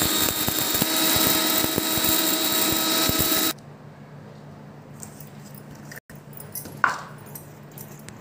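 Electric mixer grinder running at high speed with its small stainless-steel dry-grinding jar, grinding cardamom pods to powder, then switched off suddenly about three and a half seconds in. A single short knock follows a few seconds later.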